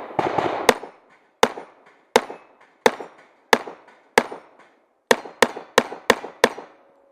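A .40-calibre STI 2011 pistol firing a competition string. There is a quick run of shots in the first second, then five shots spaced about two-thirds of a second apart, then five faster shots about a third of a second apart. Each shot is a sharp crack with a short echo.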